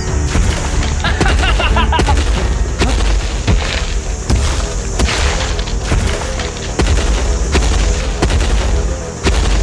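Heavy booming thuds about once a second over a deep rumble: the stomping footsteps of a T-rex in a film's sound effects, with background music.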